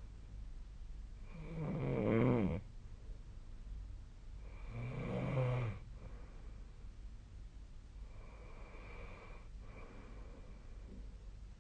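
A person snoring in their sleep: three snores about three and a half seconds apart, each a pitched rattle lasting a second or so, the third fainter than the first two.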